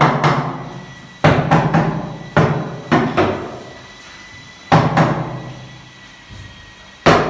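Loud knocks on wooden wardrobe cabinet panels during assembly, coming irregularly, singly or in quick groups of two or three, each ringing out for about a second in the bare room.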